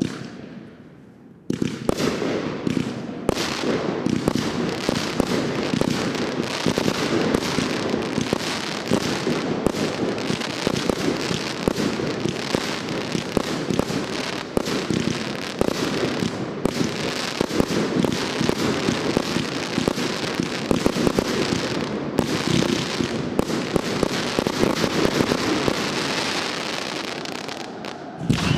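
Aerial fireworks: after a quiet second and a half, a dense, unbroken barrage of shell bursts, bangs and crackling sets in and keeps going.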